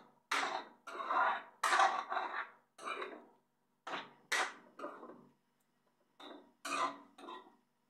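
Wooden spatula scraping and knocking around a wok as a thick mince and tomato sauce is stirred, in short strokes about one to two a second, with a short pause about five seconds in.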